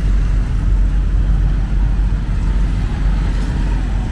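City street traffic: motorbikes and three-wheeled auto-rickshaws passing close by, a steady low rumble of engines and tyres.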